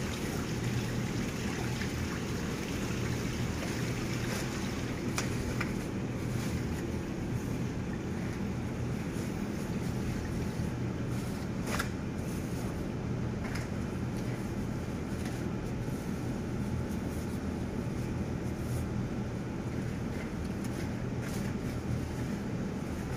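Steady droning background noise with a low hum, like a motor or fan running, and a few faint soft clicks.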